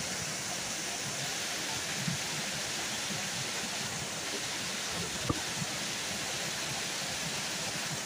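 Seasonal rain-fed waterfall pouring down a rock face, a steady rushing of water. One brief click a little after halfway.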